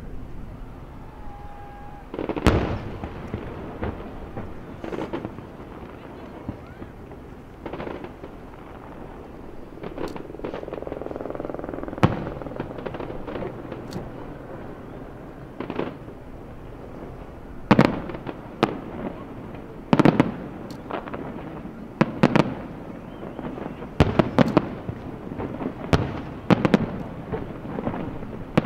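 Aerial firework shells bursting in a run of sharp booms at uneven intervals, sparse at first and coming thicker and faster in the second half.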